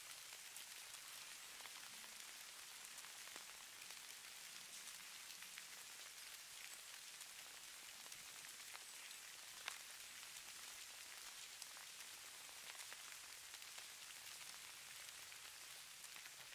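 Faint, steady patter of falling snow: a soft hiss of many fine ticks, with one sharper tick about ten seconds in.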